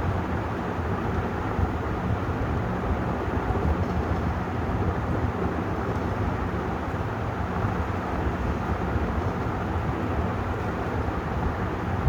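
56-inch Vision Super ceiling fan running steadily: an even rush of moving air over a low motor hum, with no change in speed.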